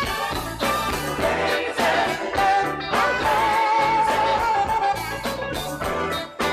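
Instrumental introduction of a Cantopop song: a backing track with drums keeping a steady beat under held horn or synth melody lines.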